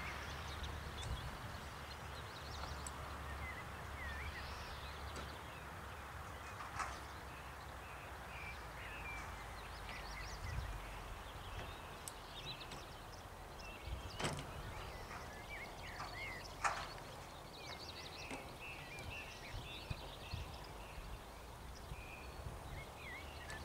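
Small birds chirping and twittering over a steady low rumble of open-air ambience, with a few sharp knocks, the loudest two a little past the middle.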